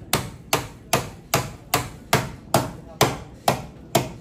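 Hammer beating out accident damage in car body sheet metal: steady, even strikes about two and a half a second, each with a short metallic ring.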